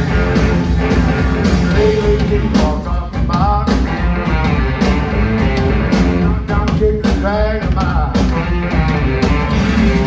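Live rock and roll band playing loudly: electric guitars, electric bass and drums driving a steady beat, heard from the crowd at a concert.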